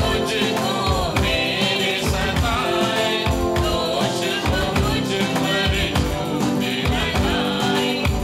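A small mixed choir of male and female voices singing a gospel bhajan, accompanied by electric guitar over a steady beat.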